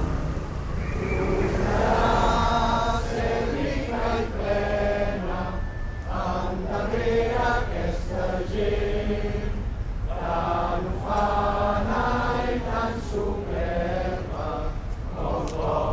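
A crowd singing together in sustained phrases, with a steady low rumble beneath.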